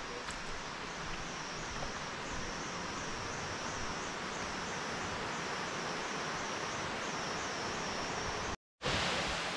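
Insects buzzing in the jungle: a high, steady buzz that pulses about twice a second over a soft hiss. Near the end the sound cuts out for a moment, then a louder steady hiss begins.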